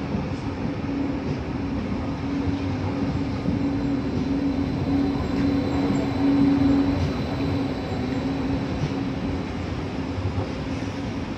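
Stadler FLIRT electric multiple unit running past along the platform: steady wheel-and-rail rumble with a low hum, loudest about six seconds in.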